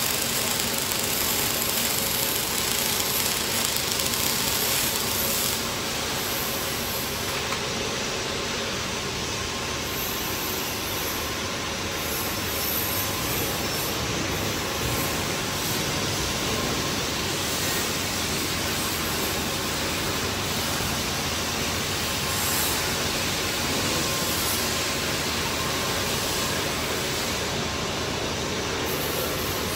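Steady hiss of a robotic welding cell: the robot's welding arc burns for roughly the first five seconds, then a slightly quieter continuous shop hiss carries on.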